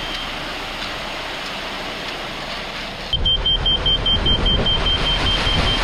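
Laser level receiver beeping to mark the height of the concrete being poured into the post holes. A steady high tone stops just after the start, and from about three seconds in come rapid high beeps, several a second, over a loud low rumble.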